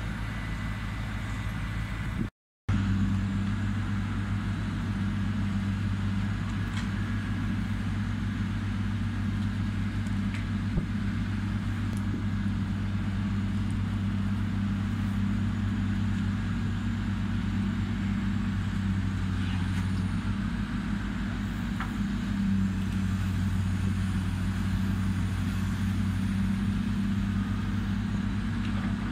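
Heavy diesel engine of a demolition excavator running steadily, a low drone with a few faint clicks.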